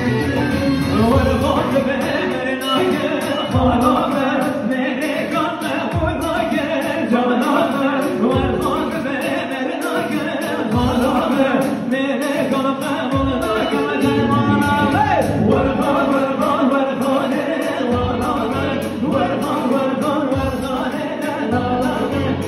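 Live amplified halay dance music: a man singing into a microphone over electric keyboard and a drum beat.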